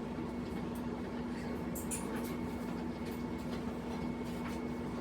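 A steady low hum with a few faint taps and clicks.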